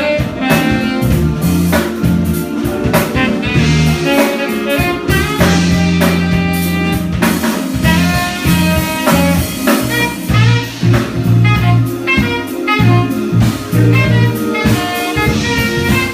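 Live jazz: a saxophone playing a flowing melody over a band with low bass notes and a drum kit keeping time.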